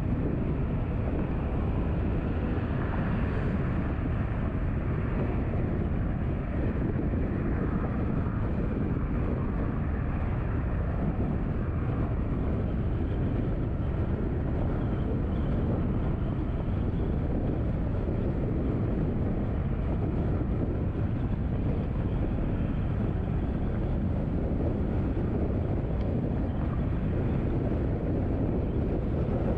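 Steady road noise of a car driving: a low, even rumble of tyres and engine with some wind, with no distinct events.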